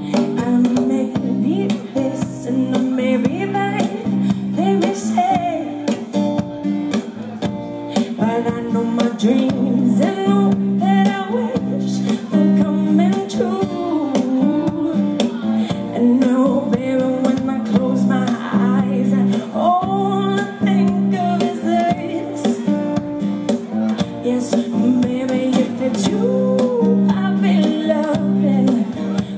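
A woman singing a soul-jazz song live, accompanying herself on strummed acoustic guitar, with a drummer adding light drum and cymbal hits.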